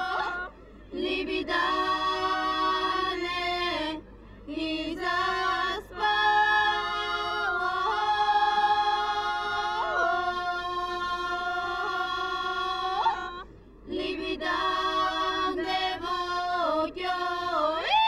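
Female voices singing a Bulgarian folk song unaccompanied, in long held notes with short breaks between phrases, about half a second, four seconds and thirteen and a half seconds in.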